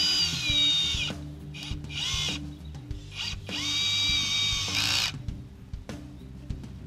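Cordless drill driver driving star-drive screws through a metal post-base bracket into a wooden post. The motor whines up and runs in three bursts: one stopping about a second in, a short one near two seconds, and a longer one from about three to five seconds.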